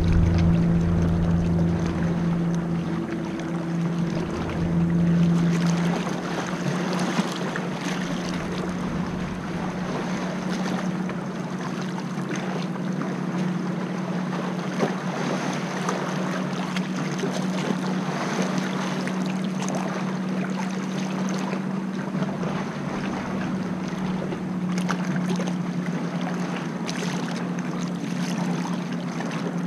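Kayak paddle blade dipping and splashing in sea water, with water lapping around the boat and wind on the microphone. A steady low hum runs underneath.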